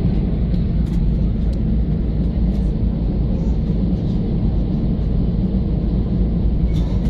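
Steady low cabin rumble of an Air Arabia Airbus A320 moving along the ground on the way to takeoff, its jet engines and rolling airframe heard from inside the cabin, with a few faint clicks.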